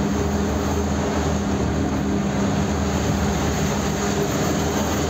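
Goods truck's engine running at a steady cruise with road noise, heard from inside the cab: an unchanging low drone with a steady hum.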